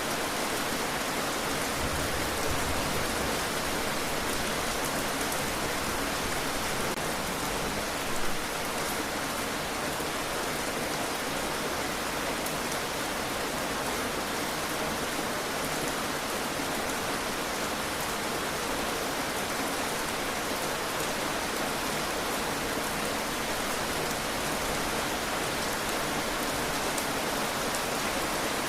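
Heavy rain falling steadily, a dense even hiss of drops on surfaces, with one brief louder knock about eight seconds in.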